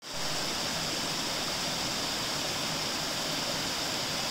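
Steady rush of a small mountain stream cascading over rocks.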